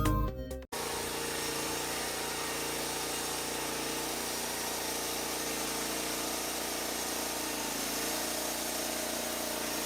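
Music cuts off under a second in, then a portable band sawmill runs with a steady, even engine-and-machine drone.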